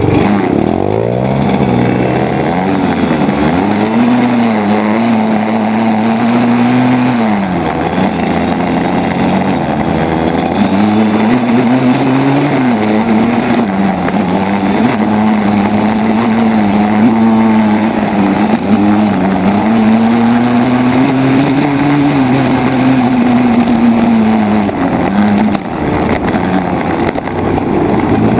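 Dirt bike engine ridden hard, heard close up from a camera mounted on the bike, its pitch climbing and falling again and again as the throttle is opened and rolled off, with wind and road noise underneath.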